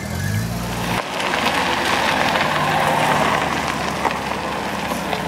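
A low engine hum cuts off about a second in. Then comes a steady crackling hiss: the tyres of a classic convertible crunching over gravel as it rolls slowly past.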